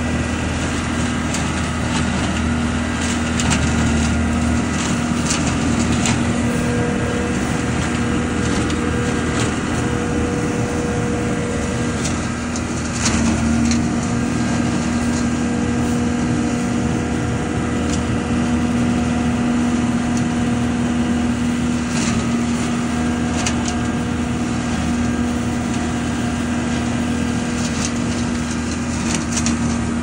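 ODB LCT650 leaf vacuum running steadily, its engine and fan drawing in dry leaves, with scattered sharp clicks and rattles as leaves and twigs strike the impeller.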